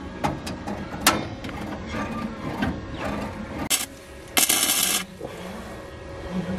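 Electric arc welder crackling and hissing in short bursts as a bead is struck on steel that is taken for stainless, the longest burst lasting under a second about four and a half seconds in, with a few sharp clicks and taps between.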